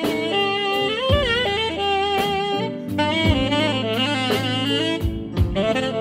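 Amplified saxophone playing a melodic line with slides and bends, over a live band backing with drum kit thuds about once a second.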